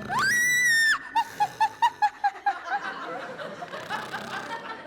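A loud, high-pitched squeal that rises, holds for about a second and drops away, followed by a quick run of high, snickering laughter.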